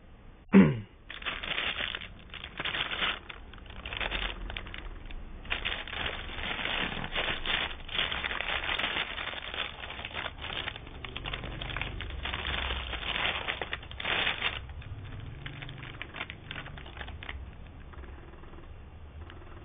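Packaging crinkling and rustling in irregular bursts as it is handled, quietening in the last few seconds. It opens with a short, loud sound sliding down in pitch about half a second in.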